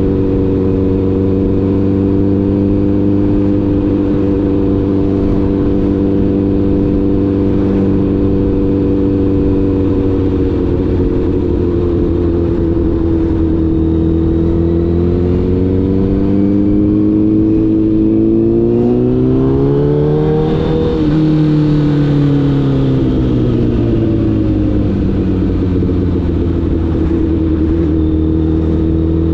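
Honda CBR1000RR sportbike's inline-four engine under way, holding a steady note, then rising in pitch as it accelerates to a peak about two-thirds of the way through, easing off and settling back to a steady cruise.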